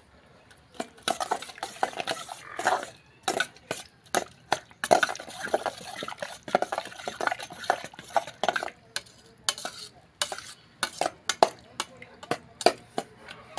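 Sliced onions being mixed by hand into curd in a steel bowl, a wet, squishing stir. In the last few seconds a spoon stirs the bowl, clicking sharply against its steel side several times.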